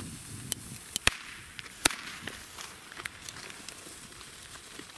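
Diamond China Cracker small firecrackers going off in a ragged series of about ten sharp pops, the loudest about one and two seconds in, fainter ones trailing off.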